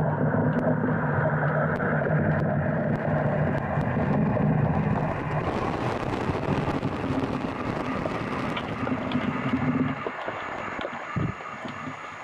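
Muffled underwater sound picked up by a submerged waterproof camera: a steady low rumble of moving water with a low hum in it and scattered small clicks. About ten seconds in the hum stops and the sound gets quieter, with a short low thump a second later.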